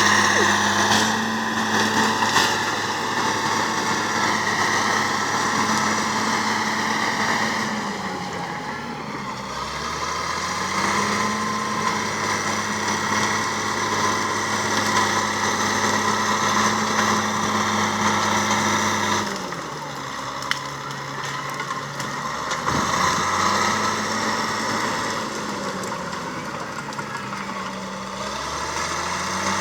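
Fiat-Allis FD14 bulldozer's diesel engine running, its note sagging in pitch and recovering three times. A brief sharp knock comes about two-thirds of the way through.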